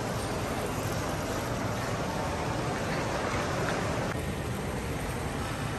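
Steady wash of indoor ambient noise in a large shopping arcade built around an indoor canal, even and hiss-like, with no distinct events.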